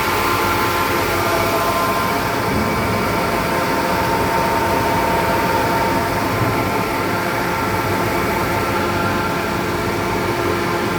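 Levimatic 630 two-head wide-belt sander running steadily at full speed: an even whine from its 11 kW main motor and belt drive, with several steady tones over a noisy mechanical hum.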